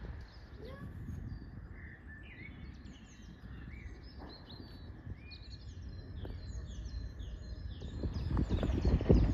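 Small birds singing in quick chirping phrases over a low outdoor rumble; the rumble grows louder near the end.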